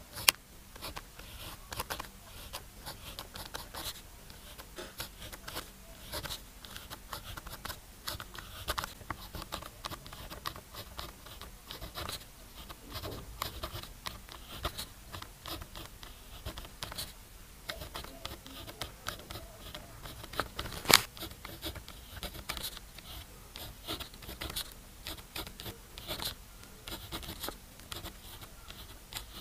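A pen scratching across paper in many short, irregular strokes while Chinese characters are written by hand, with a couple of sharper taps, the loudest about two-thirds of the way through.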